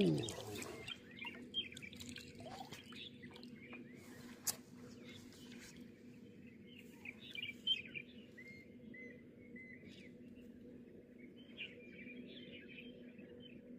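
Small birds chirping and twittering over a steady low hum, with one sharp click about four and a half seconds in.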